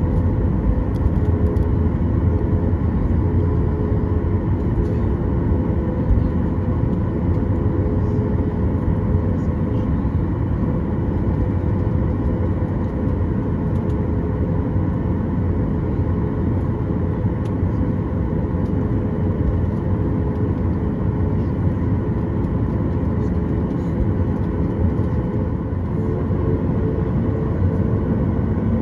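Cabin noise of a Boeing 737-8 MAX taxiing, its CFM LEAP-1B turbofans running steadily: a low rumble with a steady hum on top.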